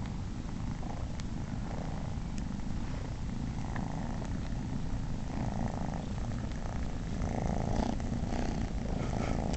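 Domestic cat purring steadily as kittens nurse.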